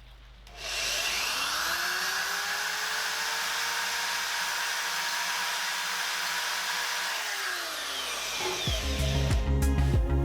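Electric drill with an attachment fitted spinning up, running steadily for about six seconds, then winding down to a stop. Background music comes in near the end.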